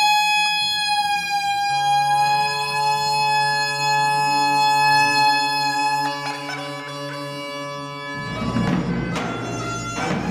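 Bagpipe playing a steady drone with a reedy melody line that shifts pitch a few times. About two seconds before the end, a large double-headed drum comes in with heavy beats about once a second.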